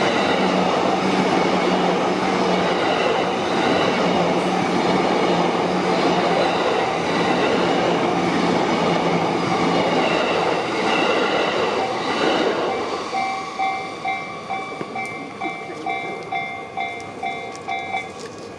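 JR Yamanote Line electric train passing through a level crossing, wheels clattering over the rails. About two-thirds of the way in the train clears, and the crossing's warning bell carries on alone, its two-tone "kan-kan" ringing about twice a second.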